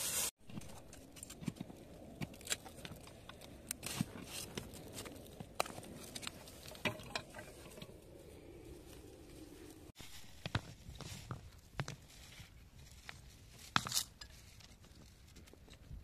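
Kitchen knife cutting wild bitter lettuce out at the root among stony soil: scattered small scrapes, clicks and knocks of the blade against stones, grit and stems, with leaves rustling as the plants are pulled.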